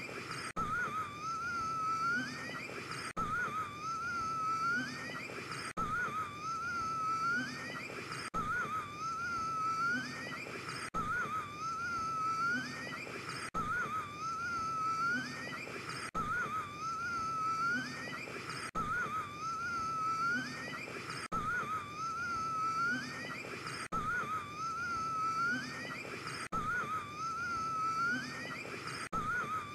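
A man gasping for air with a wheezing, whistling breath that wavers and then rises in pitch at its end. The same gasp repeats as an identical loop about every two and a half seconds, with a brief break at each join.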